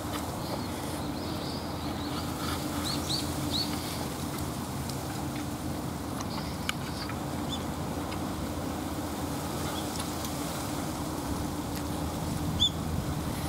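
Open-field ambience: a steady low hum, with a quick run of four short bird chirps a couple of seconds in and a single sharp chirp near the end.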